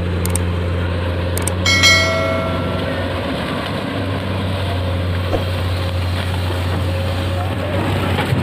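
Diesel engine of a Komatsu PC200 amphibious excavator running steadily under load as it works its bucket through lake mud. A couple of short clicks and a brief ringing chime sound about two seconds in.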